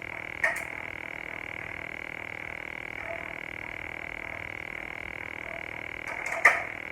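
Two sharp plastic clicks as ring-light parts are snapped and fitted together, one about half a second in and a louder one near the end. Under them runs a steady, high-pitched, rapidly pulsing drone.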